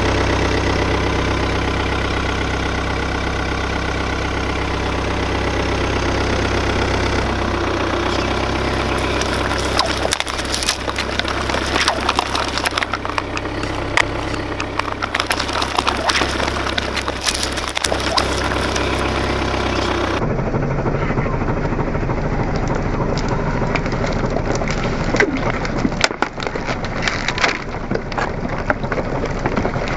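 Car engine idling steadily while its tyre crushes plastic cups of soft drink, followed by dense crackling and popping from the crushed plastic and the spilled fizzy drink. After an abrupt change about two-thirds of the way in, scattered sharp clicks and crunches follow as the tyre rolls over small debris.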